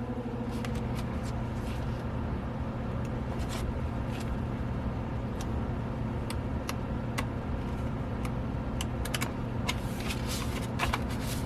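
Album photobook pages being flipped quickly, with light paper flicks scattered throughout that come closer together near the end. A steady low hum runs underneath.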